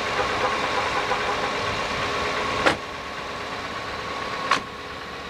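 Pontiac Grand Am car idling with its front door open, then the door slammed shut about halfway through, after which the running sound is quieter; a second sharp knock follows a couple of seconds later.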